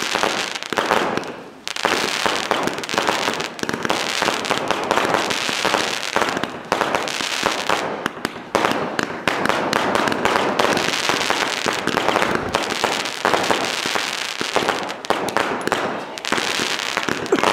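Fireworks display: a rapid, near-continuous string of bangs and crackles as shells launch and burst, with a short lull about a second and a half in.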